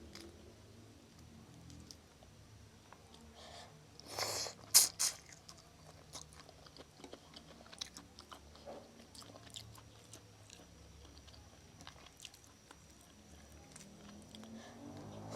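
Close-miked chewing and biting of spicy instant noodle soup with shrimp and egg: soft, wet mouth clicks throughout, with a short cluster of louder, sharper eating sounds about four seconds in.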